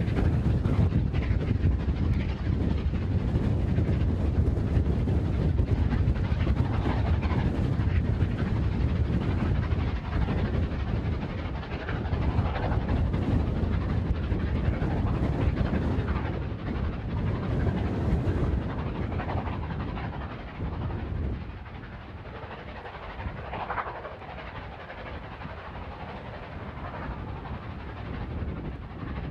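Steam locomotive Galatea, a three-cylinder LMS Jubilee 4-6-0, working hard up a steep grade with its exhaust beating, under a heavy rumble of wind on the microphone. The sound falls off noticeably about two-thirds of the way through as the train draws away.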